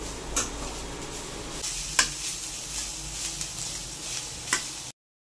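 Goat blood fry with chopped onions sizzling in oil in a stainless steel kadai as a slotted steel spoon stirs it, with three sharp clinks of the spoon against the pan. The sound cuts off abruptly just before the end.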